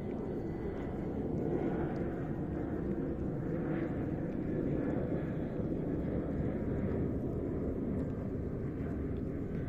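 A steady low rumble, with faint crunching ticks of a cat chewing dry kibble.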